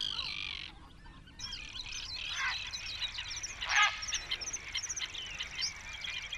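Small birds chirping over and over in quick, high, twittering notes. Twice a louder, harsher bird call cuts in, falling in pitch; the second one, about four seconds in, is the loudest.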